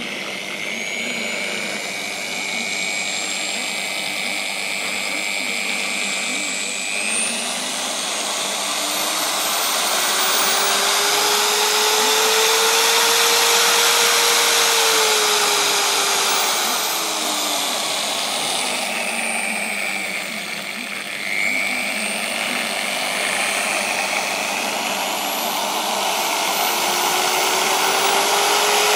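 Electric motor of a mains appliance running through a homemade dimmer, its whine rising and falling in pitch as the speed is turned up and down. It slows and drops in level about two-thirds of the way through, then speeds up again near the end.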